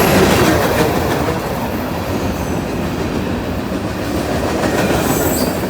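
Freight cars of a fast-moving train rolling past, a steady loud rumble and clatter of wheels on rail, with a faint high wheel squeal at the start and again near the end.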